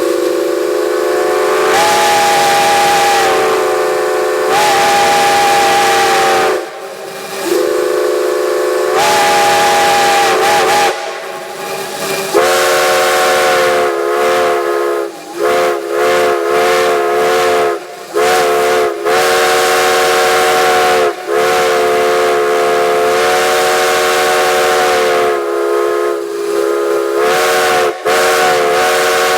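Steam whistle blowing a chord of several notes at once over a hiss of steam. It gives two long blasts that rise in pitch as each opens, then a long run of blasts broken by short gaps.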